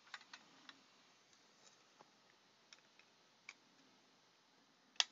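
Scattered light clicks and taps of trading cards and plastic card holders being handled, with one sharper click near the end.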